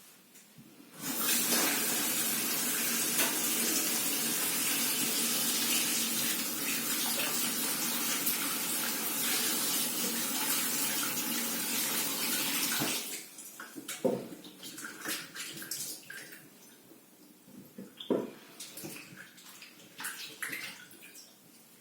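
Tap water running into a kitchen sink, turned on about a second in and shut off a little past halfway. After that come scattered light knocks and clicks.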